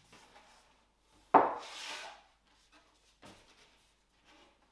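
A folded cardboard game board slaps down onto a wooden table once, sharply, about a second in. Soft rubbing and light taps follow as it is opened out.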